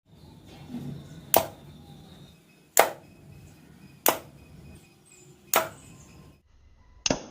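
Homemade clothespin pocket pistol snapping as it fires: four sharp snaps about a second and a half apart, then a shorter, duller one near the end.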